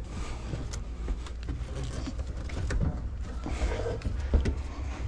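A person crawling through an attic over wooden trusses and loose blown insulation: scattered knocks, creaks and rustles, over a steady low hum.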